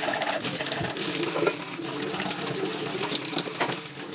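Tap water running into a stainless steel sink while dishes are rinsed by hand, with a few sharp clinks of a steel tumbler and plates against the sink, one about a second and a half in and another near the end.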